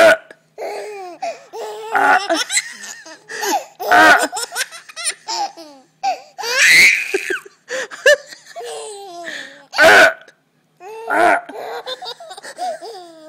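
A baby laughing in repeated bursts of giggles and belly laughs at a woman's fake burps.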